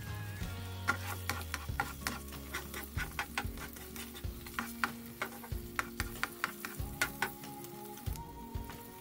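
Butter sizzling and crackling in a nonstick frying pan as an egg-in-a-hole toast fries, with a spatula scraping under the bread. Quick sharp crackles come several times a second from about a second in until near the end.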